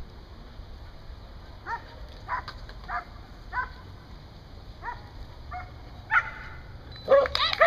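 Border collie barking in short single barks every half second to second, then a louder burst of rapid barks near the end.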